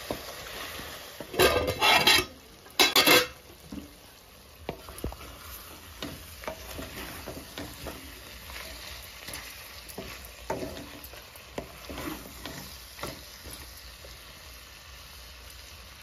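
A wooden spatula stirs and scrapes chicken and onions in a metal kadai over a low flame, with a low sizzle of frying. There are two loud scrapes against the pan between about one and three seconds in, then quieter stirring with soft knocks.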